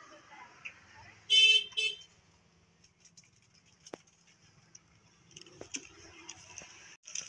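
A vehicle horn honks twice in quick succession, a longer toot and then a short one, with a steady pitch. Faint clicks and rustling follow later.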